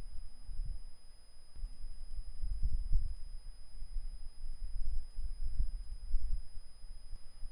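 Scattered clicks from a computer keyboard and mouse, over a low, uneven rumble.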